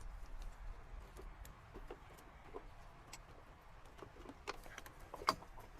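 Faint scattered clicks and taps of parts being handled in an engine bay while working around the ignition coils, with one sharper click about five seconds in.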